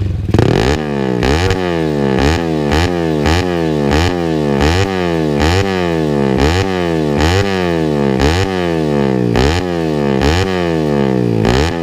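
Race motorcycle engine revved in quick, repeated throttle blips, about two a second, each a sharp rise in pitch that falls back. It is a sound check of a muffler that has just been repaired and had its carbon replaced.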